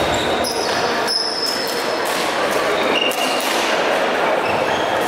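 Badminton rally in a large sports hall: rackets hitting the shuttlecock and shoes squeaking on the court floor, over a steady background of voices and play from the surrounding courts.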